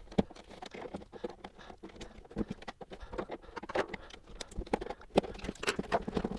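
Irregular small clicks and creaks of an old, stiff plastic equipment case being levered apart at its snap-in latches, with a few louder clicks scattered through.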